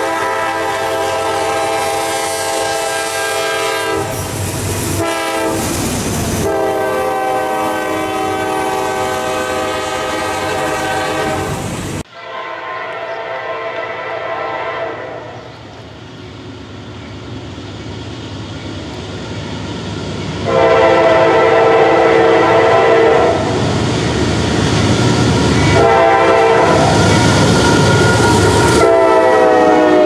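Locomotive air horn sounding long chord blasts over the noise of a moving train, with wheels clacking on the rails. About twelve seconds in the sound cuts to another recording, where a train's rumble builds and the horn sounds two more long blasts.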